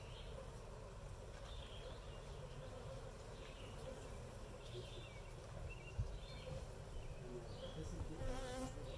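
Honey bees buzzing steadily at a hive entrance as foragers fly in and out.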